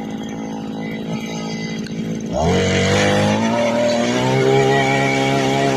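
Backpack petrol tiller's small engine idling, then revving up sharply about two seconds in and holding at high speed.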